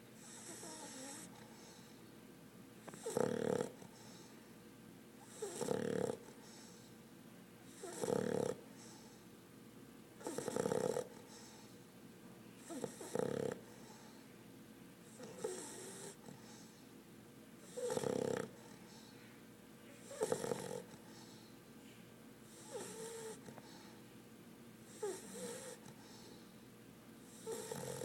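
English Bulldog puppy snoring in deep sleep, a rasping snore about every two and a half seconds, some louder than others.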